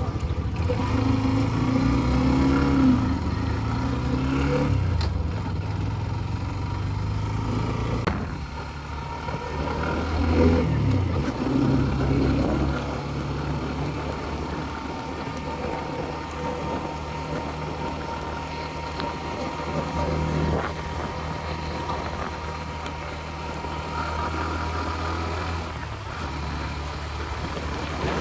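Motorcycle engine running while being ridden, its note rising and falling with the throttle and gear changes over the first dozen seconds, then holding a steady pitch.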